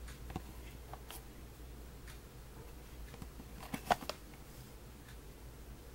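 Fingers handling and turning a cardboard toothpaste box: scattered light taps and scrapes, with a quick cluster of louder clicks about four seconds in.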